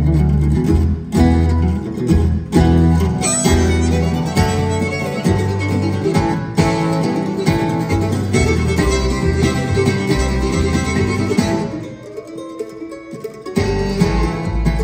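Live acoustic string band of mandolin, acoustic guitar, fiddle and upright bass playing a fast instrumental tune. Near the end the low notes drop out and the playing softens for about a second and a half before the full band comes back in.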